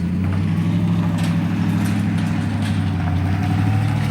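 An engine running at a steady idle, a low, even hum.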